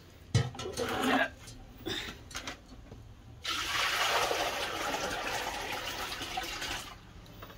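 Water poured from a plastic jug into the copper cooling bowl on top of a traditional raksi still, a steady splashing pour of about three and a half seconds that begins about halfway through. A few short knocks and bumps come before it.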